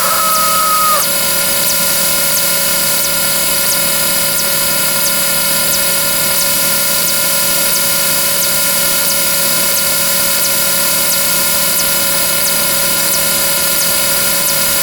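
Diesel train horn sound effect: a steady multi-tone horn chord held without break, with faint regular clicks riding over it.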